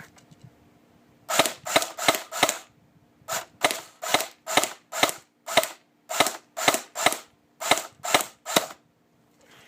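Airsoft electric rifle (CYMA CM032A, an M14/M21-style AEG) with a homemade suppressor made from a Thunder B shell, firing about sixteen single shots in quick succession, roughly two a second with a short pause about three seconds in.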